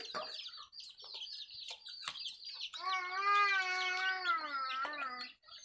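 Small birds chirping continuously in rapid, high peeps. About three seconds in, a single long, drawn-out animal cry, much louder than the chirps, cuts across them and lasts about two and a half seconds.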